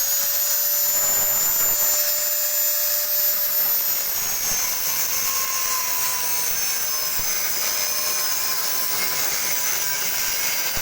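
Electric angle grinder running at full speed and cutting the car's sheet-metal body: a steady high whine over a harsh hiss. The whine sags slightly in pitch about four seconds in as the disc is loaded.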